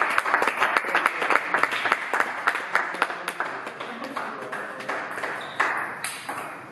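A few people clapping, dense at first and thinning out after about three seconds.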